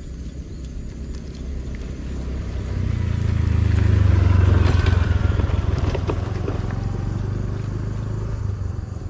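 A motor vehicle engine passing nearby, its low hum swelling to a peak about four to five seconds in and then fading.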